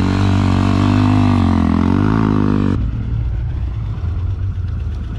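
Vehicle engine running up close, its pitch dipping and then rising as the throttle changes; about three seconds in it drops abruptly to a quieter, duller low rumble.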